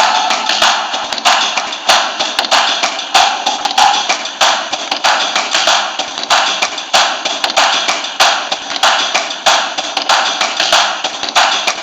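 Crowd applause with cheering as the song ends: a dense wash of clapping with sharper individual claps breaking through irregularly.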